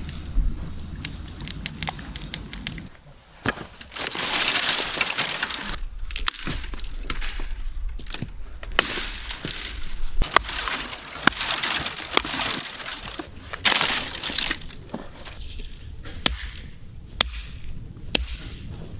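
Ingredients being mixed in a bowl: repeated bursts of crunching, scraping noise, a second or two each, with sharp clicks and clinks between them.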